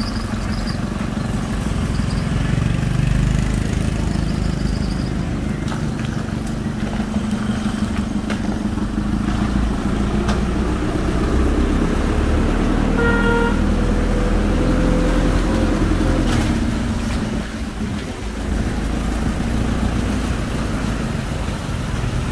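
Engine of a small flatbed truck hauling a mini excavator, running steadily as it creeps down a narrow lane. A short horn toot sounds about 13 seconds in.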